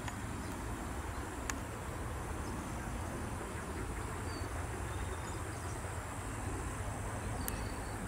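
Insects droning steadily, a thin high-pitched whine over a low rumble of wind, with a sharp click about a second and a half in and another near the end, and a few faint short high chirps near the end.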